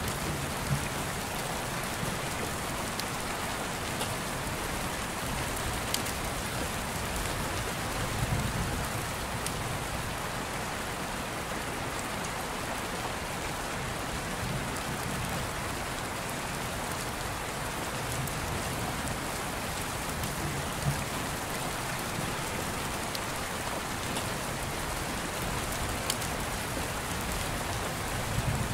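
Steady rain with an even hiss, and a few sharp ticks here and there.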